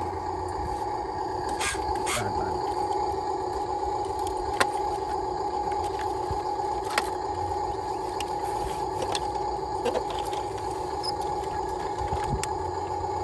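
A steady mechanical hum runs throughout, with a few sharp taps and rattles as clods of dirt are scooped and dropped into a plastic toy dump truck's bed.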